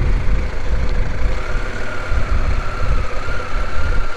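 CFMoto 800 motorcycle's engine running, with a strong uneven low rumble and a faint wavering whine that comes in about a second in.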